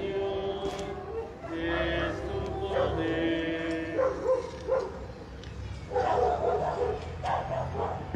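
Music with long held notes, then a pet dog barking repeatedly in short yaps from about six seconds in.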